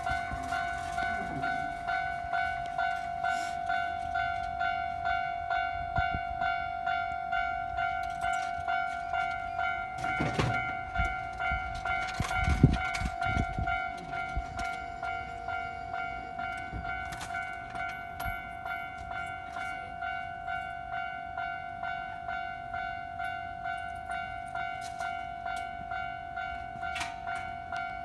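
Japanese level-crossing warning bell ringing steadily, a repeating electronic ding at an even rhythm. Around the middle a train passes, adding heavier rumbling and a few sharp clanks.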